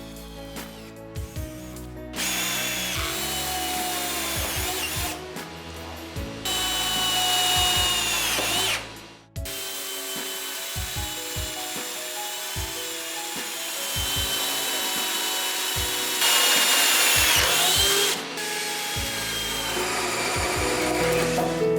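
18V brushless cordless impact drill running in two long trigger pulls with a high motor whine. Each run gets louder partway through, then the whine falls away quickly as the motor brakes to a stop.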